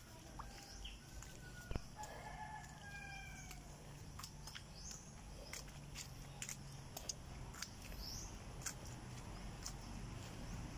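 Gamefowl roosters crowing faintly in the distance, drawn-out calls about two to three seconds in, with short high chirps of small birds and scattered sharp clicks.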